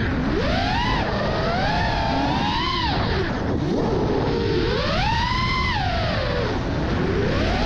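FPV freestyle quadcopter's brushless motors whining, the pitch swinging up and down in repeated sweeps as the throttle is punched and eased, over a steady rushing noise.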